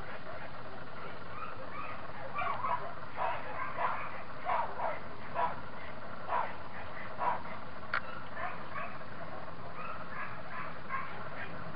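A dog barking over and over, short barks coming every half second to a second, starting a couple of seconds in and tailing off near the end, over a steady low background hum.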